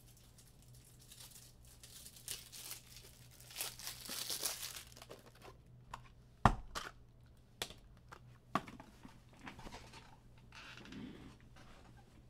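Packaging being handled: crinkling and tearing, loudest in the first half, then three sharp knocks a second or so apart and more soft rustling.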